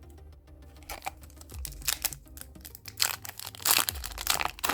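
A Yu-Gi-Oh booster pack's foil wrapper crinkling and being torn open: a run of short rustles and crackles that starts about a second in and grows busiest near the end.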